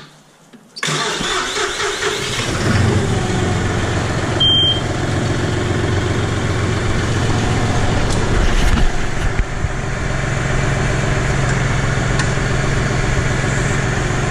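John Deere compact tractor's diesel engine cranking and starting about a second in, then running steadily. Its note shifts briefly near the nine-second mark before settling again. A single short beep sounds a few seconds after the start.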